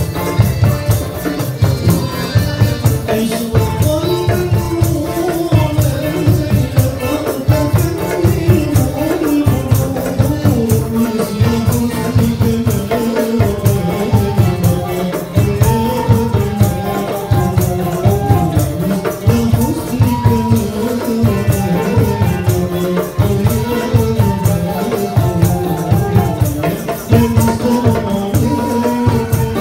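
Live Malay ghazal music: accordion, gambus lute and violin playing a melody over a steady percussion beat with tambourine jingles, while a man sings into a microphone.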